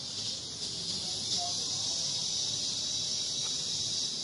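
Insects droning outdoors: a steady, high-pitched buzz that holds unchanged throughout.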